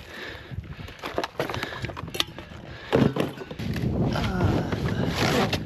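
Gloved hands handling and shifting a pile of discarded junk: scattered rustling, clicks and scraping, with a sharp knock about three seconds in and busier scraping and clattering after it.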